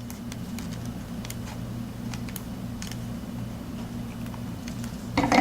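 Scattered light clicks and taps of a plastic action figure being handled and posed, over a steady low hum.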